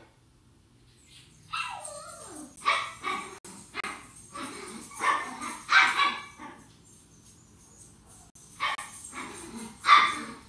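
Dog barking off-screen: a string of about nine separate barks in irregular bunches of one or two, starting about a second and a half in, the first sliding down in pitch, the loudest near the end.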